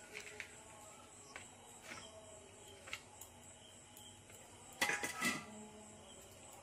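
A few faint clinks of steel kitchen utensils, then a short, louder clatter of a steel slotted spoon and colander against a ceramic plate about five seconds in.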